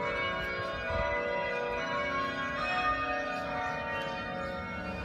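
Bells ringing, many overlapping tones sounding together and ringing on.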